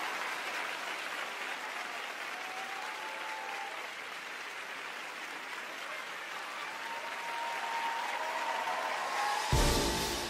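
Concert audience applauding and cheering, slowly dying down, with a few high voices wavering above the clapping. Near the end, deep heavy drum hits start the next song.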